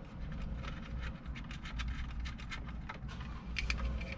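Cables and plastic connectors being handled and fitted at the back of a car head unit: a run of quick light clicks, rustles and scrapes over a low steady hum.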